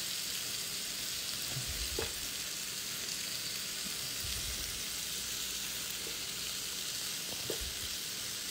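Shrimp sizzling in a hot frying pan with a steady high hiss, and a few light taps of a spatula turning them, about two seconds in and again near the end.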